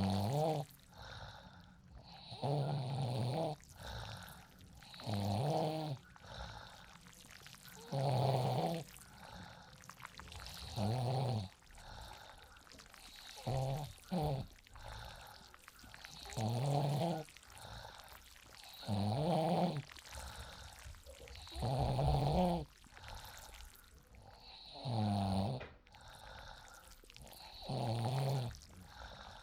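A sleeping person snoring in a steady rhythm, about eleven low, buzzing snores, each just under a second long and roughly every two and a half to three seconds. Between the snores there is a steady hiss of rain or fan noise.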